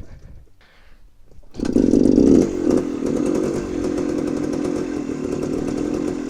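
1974 Honda MT250 Elsinore's single-cylinder two-stroke engine starting from cold with the choke on. It catches about a second and a half in, revs briefly, then settles into a steady fast idle.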